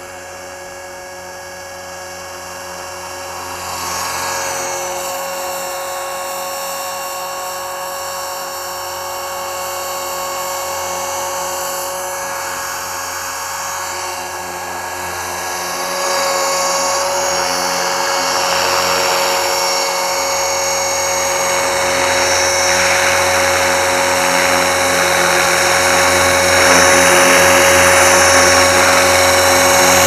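Tarot 450 electric RC helicopter in flight, its motor and drive giving a steady high whine that grows louder in steps as the helicopter comes in close overhead.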